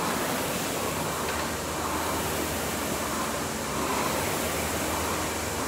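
Concept2 rowing machine's air flywheel whooshing steadily, swelling with each stroke about every two seconds.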